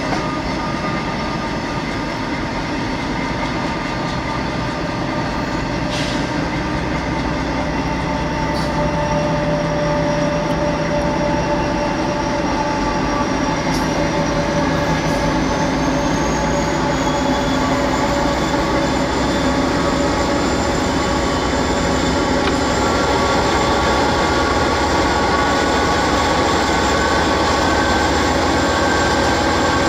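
Union Pacific diesel freight locomotives running at about 30 mph, heard from a car pacing alongside the train, a steady drone mixed with road noise. The engine tones edge up in pitch about halfway through and the sound grows slightly louder.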